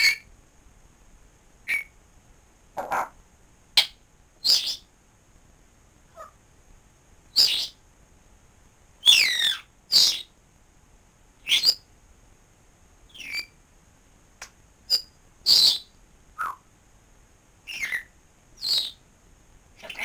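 African grey parrot calling in short, separate whistles, clicks and squawks, about one a second, with a longer call that slides in pitch about nine seconds in.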